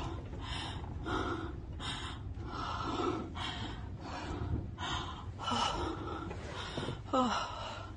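A person breathing quickly and heavily close to the microphone, about two loud breaths a second, while sheltering under a desk during a strong earthquake.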